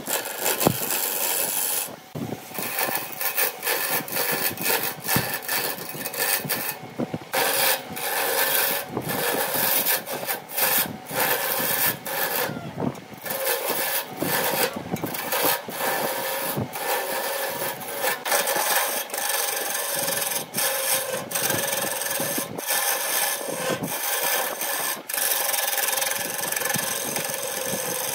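Turning gouge cutting the outside of a spinning wooden blank on a wood lathe: a continuous rough scraping hiss of wood being shaved, broken by many brief gaps where the tool eases off the wood.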